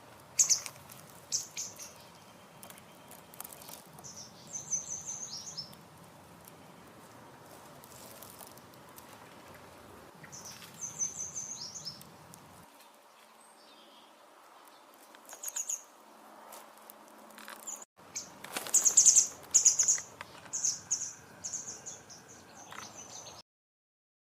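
Grey wagtail of the Azores race (Motacilla cinerea patriciae) giving short, high calls in scattered runs of a few notes each, the busiest and loudest run near the end.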